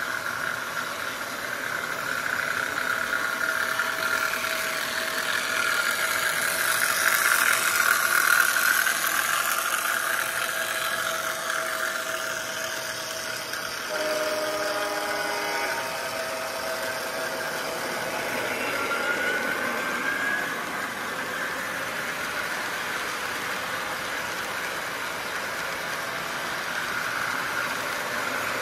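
O-gauge model train running around the layout: the wheels and motors make a steady rolling rumble with a whine, loudest about seven to nine seconds in as the cars pass closest. About fourteen seconds in, a horn sounds from the locomotive's sound system for about two seconds, and a short rising squeal follows about five seconds later.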